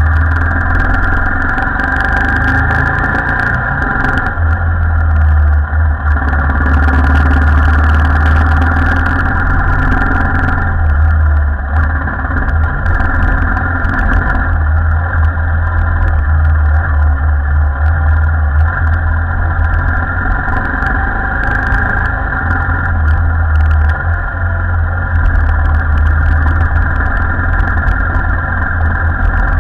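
Royal Enfield Himalayan's single-cylinder engine running steadily under way at low speed, a continuous deep rumble, with scattered clicks and rattles as the motorcycle rides over a rough dirt and stone track.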